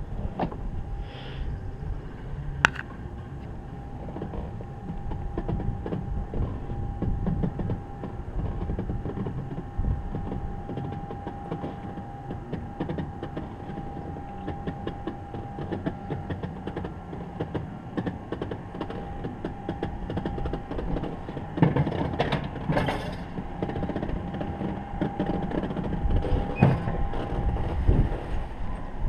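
Alpine coaster sled rolling down its steel tube rails: a continuous low rumble and rattle with a steady whine, and a few sharp knocks, the loudest a cluster about 22 seconds in.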